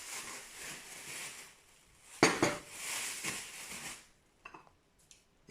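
Thin slices of raw potato tipped into a plastic bag: rustling and slithering, with one sharp knock about two seconds in and a few light clicks near the end.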